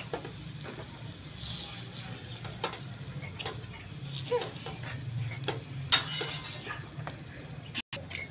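Scattered light clinks and taps of utensils and a plate at a hot cast-iron tawa griddle, over faint sizzling and a steady low hum. The sharpest click comes about six seconds in.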